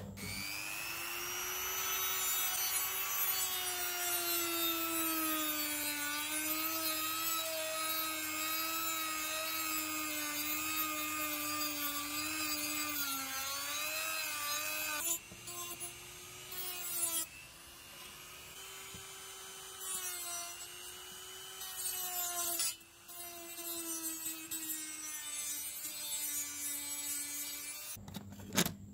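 A small handheld power tool's motor whining as it works the model's metal, its pitch dipping and wavering under load. It stops and restarts briefly a few times and cuts off near the end.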